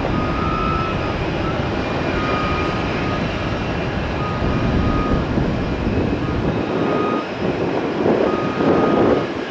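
Jet engine noise of an Airbus A321 climbing out just after takeoff, a steady rumble at full climb power. A short high beep repeats about once a second behind it.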